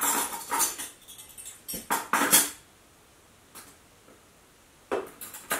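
Metal cutlery and kitchenware clattering while someone rummages through a kitchen drawer for a spoon: a run of knocks and rattles, a pause of about two seconds, then a few more knocks near the end.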